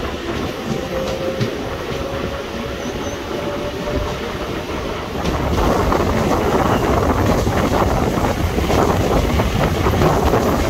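Diesel-electric multiple unit (DEMU) passenger train running, heard from its open doorway: steady rumble of wheels and coaches that grows louder about five seconds in, with wheels clacking over the rails.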